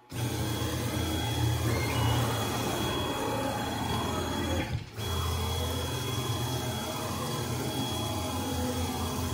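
Onefinity CNC's stepper motors driving its ball screws as the gantry and router carriage travel across the bed: a steady mechanical whir with a thin high whine that changes pitch as the moves change, breaking off briefly about five seconds in before resuming.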